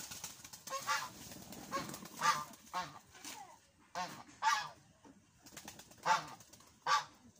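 Short, pitched honking animal calls, about nine of them, several coming in close pairs.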